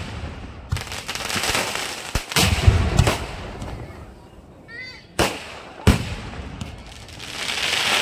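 Fireworks display: aerial shells bursting with several sharp bangs over a steady crackle of falling stars, and a hissing fizz that swells near the end.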